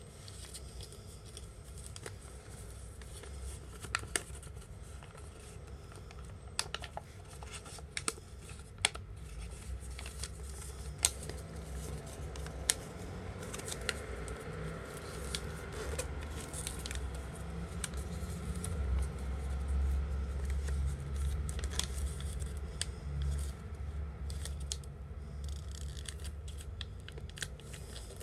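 A sheet of paper being folded and creased by hand for an origami bird: scattered sharp crackles and snaps with soft rustling, over a low steady rumble that grows louder in the second half.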